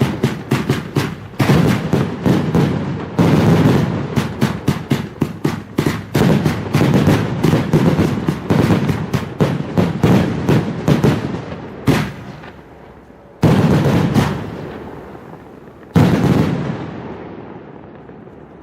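Fireworks battery (cake) firing: a rapid string of sharp shots and bangs for about the first eleven seconds, then thinning to three separate loud bangs, the last two trailing off slowly.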